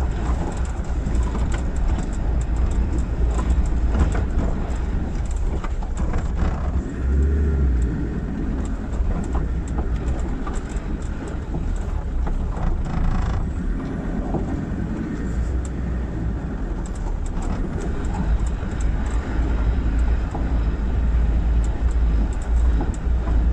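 Land Rover Defender Td5's five-cylinder turbodiesel engine running as the vehicle crawls along a rough dirt track: a steady low rumble with frequent short knocks and rattles.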